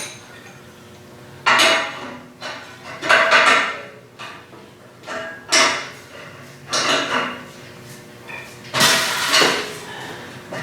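Metal parts and tools clattering and clanking in about five separate bursts, the last near the end being the loudest, as go-kart chassis parts are handled during assembly.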